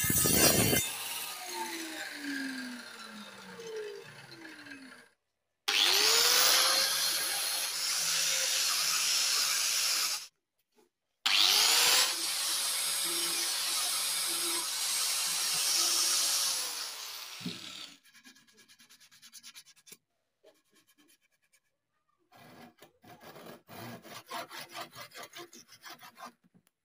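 Electric angle grinder with a sanding pad running twice, each time spinning up, sanding a wooden mallet stick for several seconds, then winding down. Near the end, a handsaw cutting through the wood in quick back-and-forth strokes. In the first few seconds a power tool winds down with a falling pitch.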